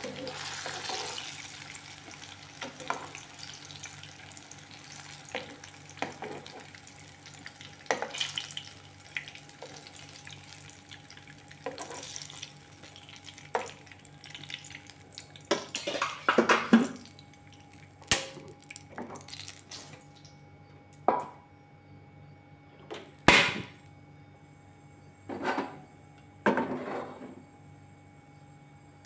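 Hot oil in a wok under a wire spider strainer of fried eggplant: a sizzle that fades within the first couple of seconds, then scattered drips and sharp metal clinks and clicks of the strainer against the wok.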